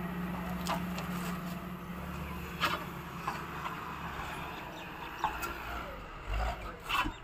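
Low steady hum of an idling engine, fading somewhat after the first few seconds, with scattered sharp knocks and scrapes from cargo being handled on a truck.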